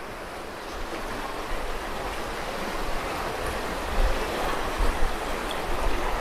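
Fast glacial meltwater river rushing over rocks: a steady, even rush of water.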